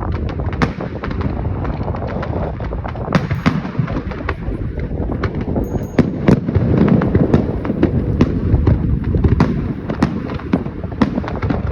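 Fireworks going off: many sharp bangs and crackles, several a second, over a continuous low rumble of further bursts.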